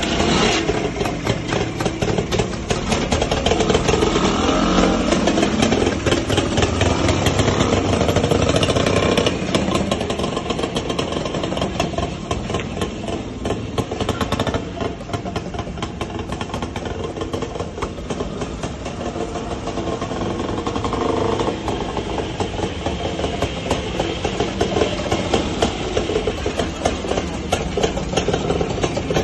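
Two vintage Rajdoot GTS motorcycles' single-cylinder two-stroke engines running and revving as they pull away, fading as they ride off, then growing louder again as they come back.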